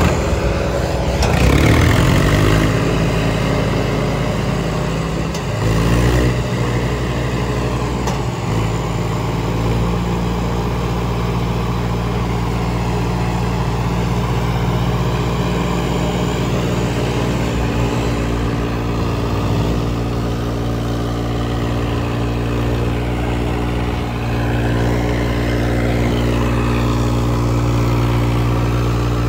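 Two diesel tractor engines running hard under full load in a chained tug of war, revved up in the first couple of seconds and then held at steady high revs.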